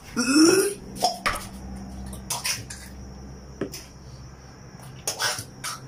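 A man coughing and gagging in short bursts, with a few clicks and knocks of things being handled.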